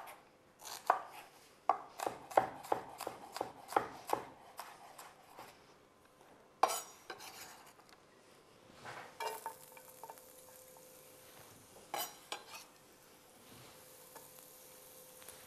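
A chef's knife chopping an onion finely on a wooden cutting board: quick taps, about three a second, thinning out after about five seconds. From about nine seconds in, the chopped onion is scraped into a hot frying pan and sizzles faintly, with a few clinks of the knife on the pan.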